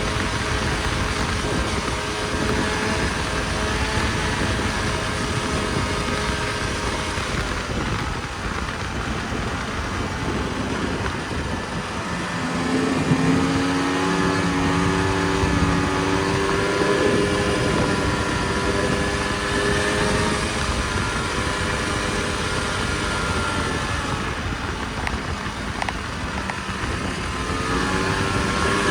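Snowmobile engine running under way over a steady rushing noise, its pitch rising with the throttle about twelve seconds in, then easing off and rising again near the end.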